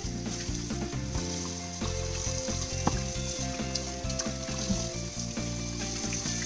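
Kitchen faucet running in a steady stream into a stainless steel sink as raw chicken is rinsed under it, with plastic packaging crinkling and light handling clicks. Background music plays underneath.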